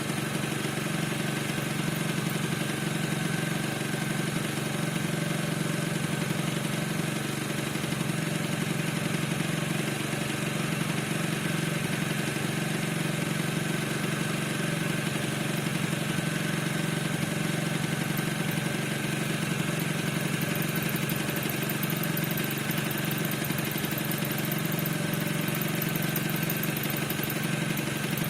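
Piaggio NRG 50 scooter's single-cylinder two-stroke engine idling steadily, with a squeak from the engine whose cause is unknown.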